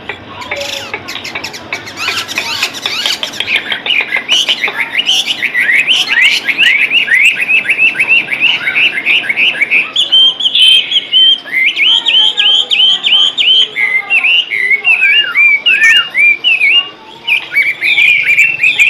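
White-rumped shama (murai batu) in full song: a long, loud run of quick repeated chirps that turns into slurred whistled phrases about halfway through.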